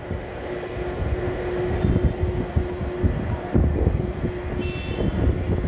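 Boeing 767 jet engines running at taxi idle, a steady low hum, under gusty wind buffeting the microphone.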